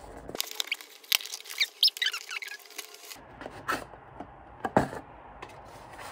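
Kraft cardboard box of a reed diffuser set being opened by hand: in the first half the card squeaks and scrapes as the inner box slides out of its sleeve, with quick clicks of the card, then two sharper knocks about four and five seconds in.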